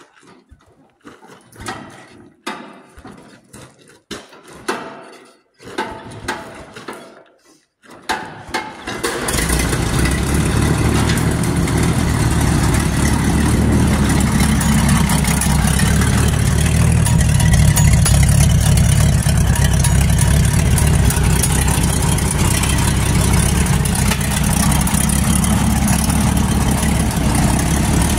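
Massey-Harris 102 tractor engine on a cold start: uneven bursts of noise about once a second for some eight seconds as it is cranked, then it catches about nine seconds in and settles into a steady idle.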